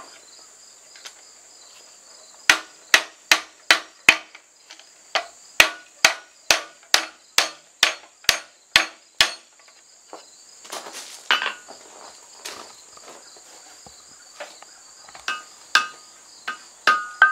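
Hand hammer striking red-hot steel while forging a froe's eye, a steady run of metallic blows about two a second for several seconds, then a few scattered strikes, the last ones ringing off the anvil near the end. A steady high insect chorus runs underneath.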